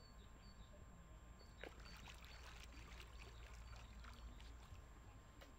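Near silence at the water's edge: faint small splashes and dabbling of lake water as a coot dives close by, with a few soft ticks over a low steady rumble.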